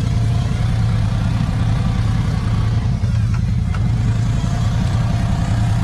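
Side-by-side UTV engine running steadily under load as the lifted machine crawls through deep mud, a constant low drone.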